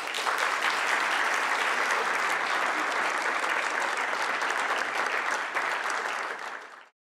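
Audience applauding, a steady dense patter of many hands clapping that cuts off suddenly near the end.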